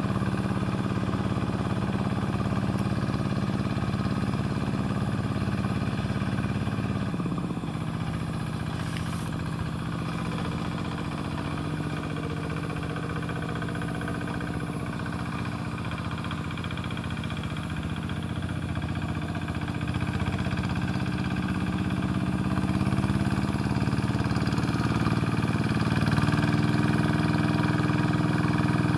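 Rice-field tractor's engine running. Its pitch drops about seven seconds in, then climbs and gets louder over the last several seconds.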